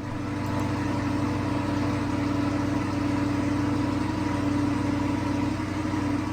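A car engine idling steadily at an even pitch.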